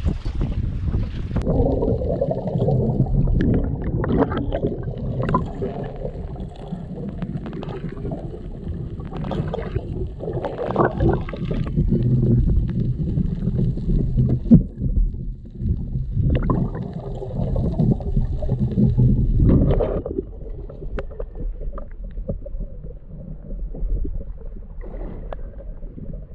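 Muffled rushing and gurgling of water heard through a camera held underwater, with dull knocks and heavier surges of water noise in the middle.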